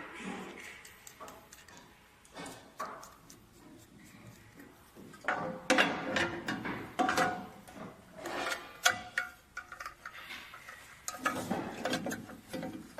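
Irregular clicks, knocks and rubbing of metal parts being handled and fitted onto a machine frame, busiest from about five to nine seconds in.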